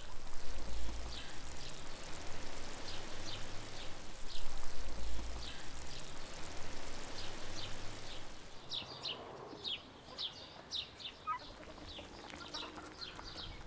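Small birds chirping, short high chirps that come thicker in the second half. Under them, for the first half, a steady hiss with two low rumbles, which are the loudest sounds.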